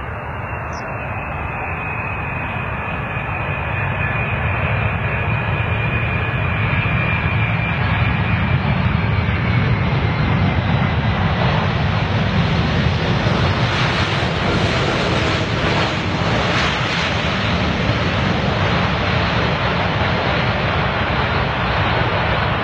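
Jet engines of a landing Boeing 747, four turbofans: a steady rushing noise with a high whine that slowly falls in pitch over the first ten seconds. The sound grows louder over the first several seconds and turns brighter and harsher around the middle.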